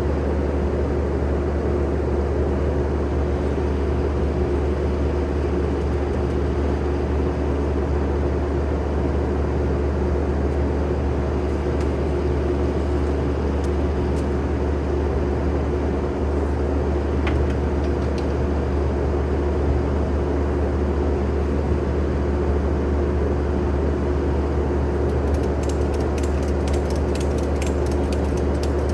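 Skid steer's diesel engine running steadily at a constant speed, a low even drone, with a few faint ticks near the end.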